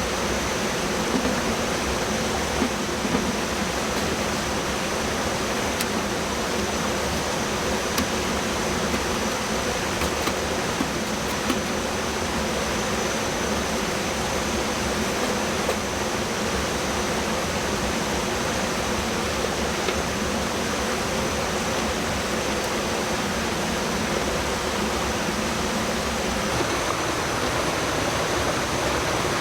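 Steady rush of a waterfall and rocky stream, with a thin, steady high-pitched tone above it.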